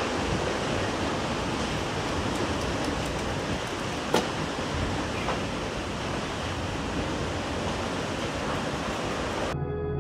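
Tornado wind rushing over a phone's microphone as a steady loud noise, with one sharp crack about four seconds in. Near the end it cuts off abruptly into slow ambient music with held tones.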